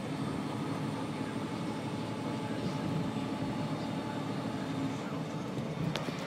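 Steady drone of a semi-truck's diesel engine and tyre noise heard from inside the cab while cruising at highway speed, with one faint click near the end.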